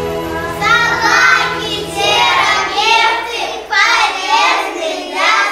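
A young child singing in short, high phrases, over the end of background music that stops about three and a half seconds in.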